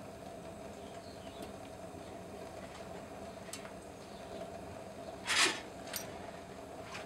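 Gas burner firing a brick melting furnace, running with a steady hum. A short scrape about five seconds in, then a click.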